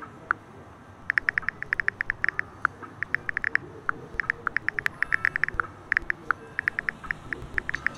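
Smartphone on-screen keyboard tap sounds: quick runs of short, high-pitched ticks as a message is typed, broken by brief pauses.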